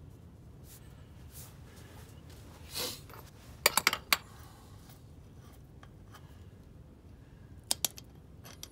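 Light metallic clinks as a loosened axle nut is spun off a Land Rover Series 2A front hub by hand: a quick run of sharp clicks about halfway through and two more near the end, over a faint low hum.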